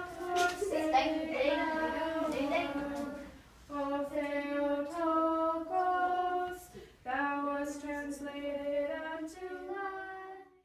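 A group of children and a woman singing a song together in long held notes, in three phrases with short breaks about a third and two-thirds of the way through.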